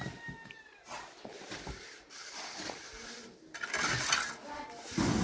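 Steel masonry trowels scraping and tapping mortar on a concrete block wall, with a louder scrape about four seconds in and a heavier knock near the end. A faint animal call sounds near the start.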